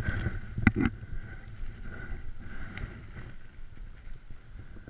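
Wind rumbling on the microphone outdoors, with two or three sharp knocks a little under a second in.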